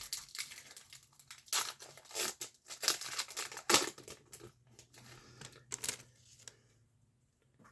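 Hockey card pack wrapper being torn open and crinkled in the hands, a run of irregular crackles and rustles that stops about a second before the end.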